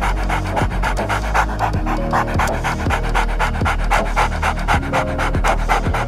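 Dog panting rapidly with its mouth open, quick even breaths about five a second, over background music.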